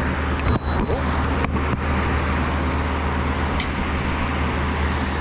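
Steady low hum and rumble of background machinery, with a few short clicks and knocks in the first two seconds.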